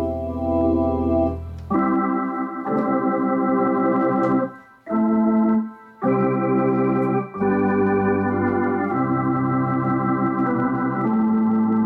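Gulbransen Rialto II electronic theatre organ playing sustained chords on its manuals over low bass notes, the chords changing every second or two, with two brief breaks about five and six seconds in.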